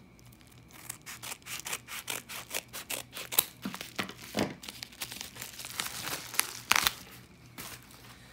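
Scissors cutting through a padded paper bubble mailer, then the mailer and a plastic card sleeve crinkling as the contents are pulled out: a run of short scrapes, snips and rustles.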